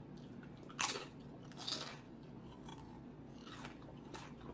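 A person chewing food, with two louder crunchy bites about one and two seconds in and fainter chewing after.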